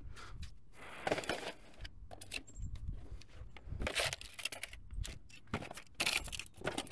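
Cardboard box of a portable GPS navigator being handled and packed, rustling and scraping in several short irregular bursts.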